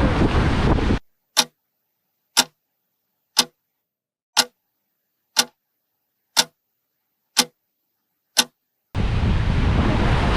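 Clock ticking sound effect: eight sharp ticks, one each second, over dead silence. Wind and surf noise for about a second before it, returning near the end.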